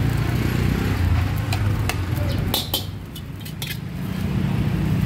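A steady low engine hum, with sharp metallic clinks of cooking utensils against pans about halfway through, as the hum briefly drops.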